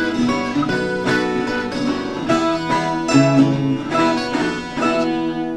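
Instrumental country gospel music: acoustic guitar picking and strumming, with no singing.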